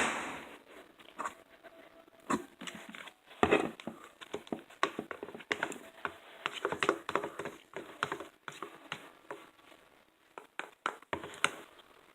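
Irregular clicks, taps and knocks from hands working plastic containers and a lid while making slime, with a louder knock right at the start and another about three and a half seconds in.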